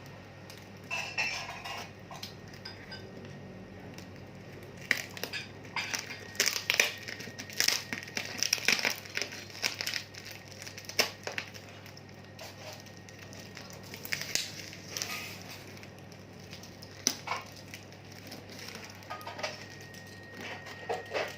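Packaging being handled and opened by hand: irregular crinkling and crackling in bunches, busiest in the middle, over a low steady hum.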